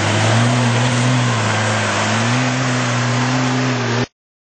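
Toyota Hilux 4x4 engine pulling hard under load as the truck climbs a steep muddy bank out of a river crossing, with tyre and mud noise. The engine note dips briefly and picks up again, then the sound cuts off abruptly about four seconds in.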